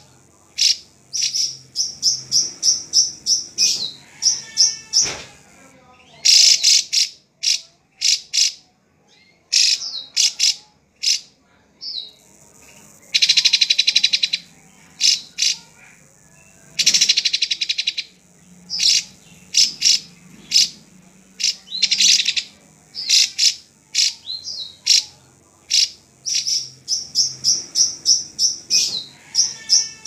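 A caged drongo (srigunting) singing: bursts of sharp, quick chirps and whistles, some in fast runs, broken by two longer harsh, buzzy phrases about halfway through.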